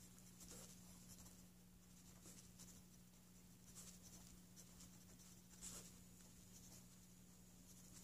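Faint scratching of a Pentel Sharp Kerry 0.7 mm mechanical pencil writing on a paper notepad, a few soft strokes, over a low steady hum.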